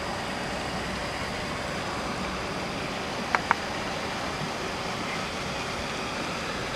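Steady, even background noise with two sharp clicks close together about three and a half seconds in.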